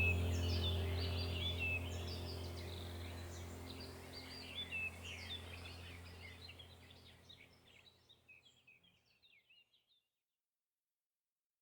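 Chorus of rainforest birds, many overlapping chirps and calls, over a low steady drone; the whole sound fades out gradually and is silent from about two thirds of the way through.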